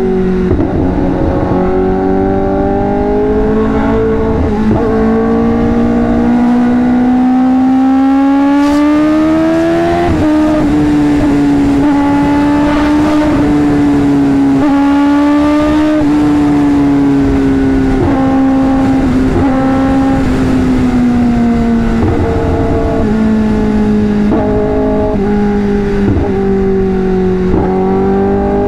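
Kawasaki ZX-10RR's inline-four engine running through an SC Project titanium exhaust while riding. The engine note climbs for about ten seconds, drops sharply at an upshift, then holds fairly steady and eases down, with a few quick changes in pitch near the end. A low rushing noise runs beneath it.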